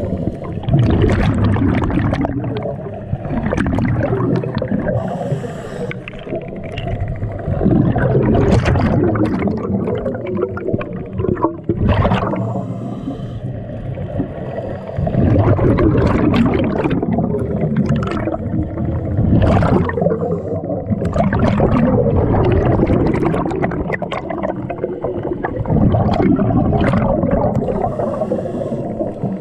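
Scuba diver breathing through a regulator underwater: exhaled air bubbles out in a gurgle about every three to four seconds, with the breath drawn in between.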